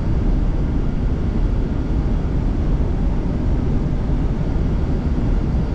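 Steady rushing noise on the flight deck of an Airbus A300-600 on final approach: air flowing past the cockpit mixed with engine noise, even throughout and heaviest in the low range.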